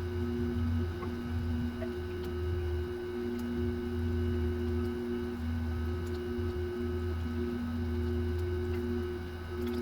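Steady electrical hum with a few held tones above it, some of them dropping out briefly now and then.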